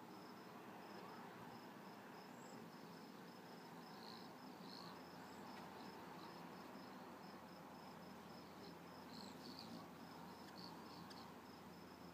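Faint, steady cricket chirping, about three chirps a second, with a few short, high chips from hummingbirds squabbling at the feeders scattered through.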